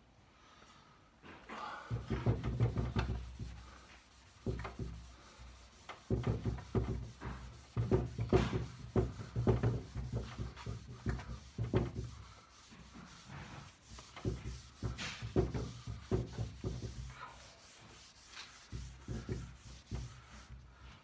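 A wax-loaded pad being rubbed briskly over a pine tabletop, working wax into the wood. It comes in bouts of quick back-and-forth strokes with short pauses between them.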